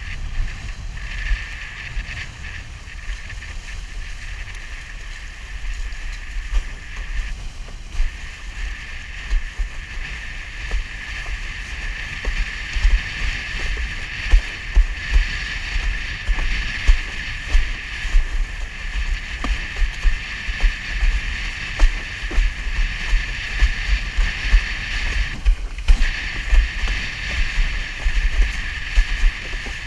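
Wind buffeting a GoPro's microphone while a windsurf board planes across choppy water, its hull hissing over the surface, with irregular slaps as it hits the chop, more frequent in the second half. The hiss briefly cuts out twice.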